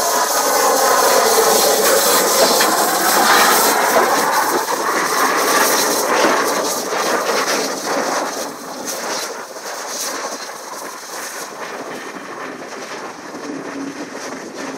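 Steam locomotive 35028 Clan Line, a Southern Railway Merchant Navy class Pacific, passes close by with a loud rush of noise and steam hiss. Then its Pullman carriages clatter over the rail joints, and the sound fades from about halfway through as the train draws away.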